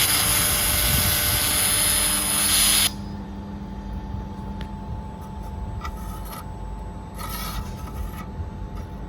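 Automatic laser welding machine: a loud, steady hiss for about three seconds that cuts off suddenly, then the machine's quieter steady hum with two short hisses near the end.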